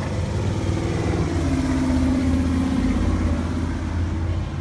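A motor vehicle's engine running close by, swelling to its loudest about two seconds in and then easing back.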